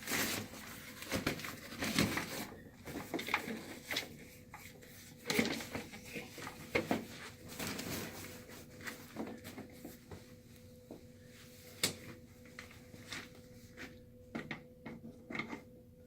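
Parts of a folding massage chair being handled and fitted together: irregular knocks, clicks and rustles, busier in the first half, over a faint steady hum.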